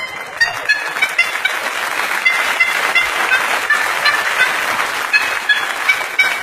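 A set of car horns played as a musical instrument: a quick run of short honked notes over a loud hiss.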